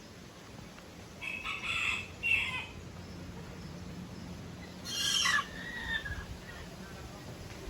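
A rooster crowing in a few separate calls, about a second in and again near five seconds, the last ending in a short falling-off tone.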